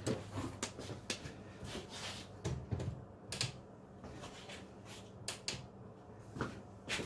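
Irregular light clicks and knocks, a dozen or so spread unevenly, of small hard objects being handled and set down on a bench, over a faint low hum.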